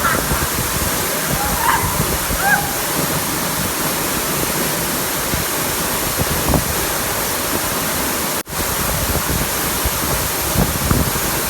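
Loud, steady rush of a waterfall, with an instant's break about eight and a half seconds in.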